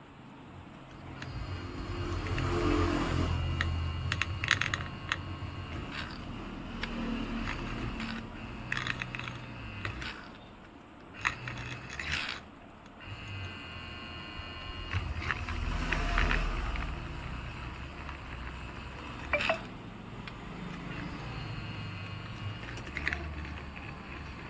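Small hand tools clicking and scraping against an iPhone XS frame while leftover back-glass adhesive is scraped off, with irregular sharp clicks and handling knocks.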